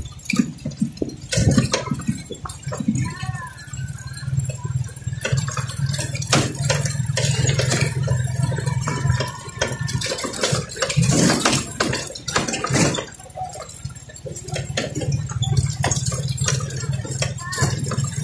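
Motorcycle engine running with a steady low hum while riding over a rocky dirt road, with many short knocks and rattles over a rushing noise.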